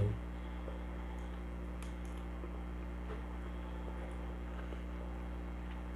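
A steady low hum, with a few faint soft clicks of a metal spoon against a disposable plastic plate as it mixes rice and curry.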